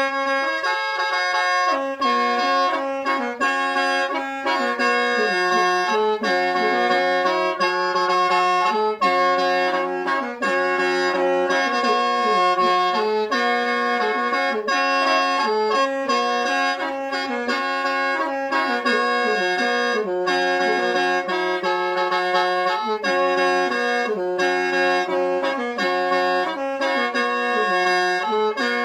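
Khaen, the Lao bamboo free-reed mouth organ, played solo: several notes sound at once, a steady drone note held under a melody that moves in chords.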